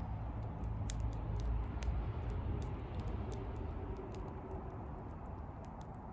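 Wood bonfire burning, crackling with scattered sharp pops over a low, steady rumble.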